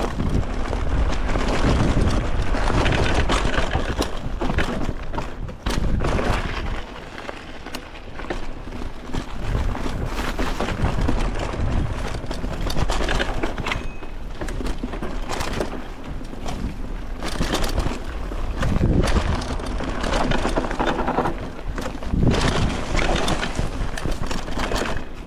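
Fast downhill ride over rough ground: wind buffeting the microphone in uneven gusts, with rattling and knocking from the bumps of the trail.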